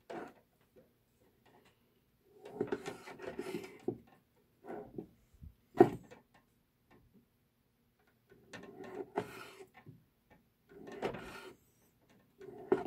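Sashimi knife slicing through thick, torch-seared squid mantle on a cutting board: six separate slow strokes with quiet between them, and one sharp knock about six seconds in.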